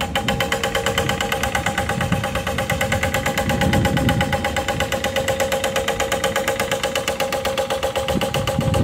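Excavator running, with a fast even pulsing of about ten beats a second and a steady whine over it.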